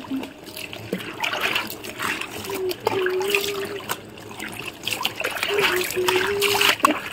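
Water poured from a plastic mug splashing and trickling over a person and a wet cloth sari, in several uneven pours.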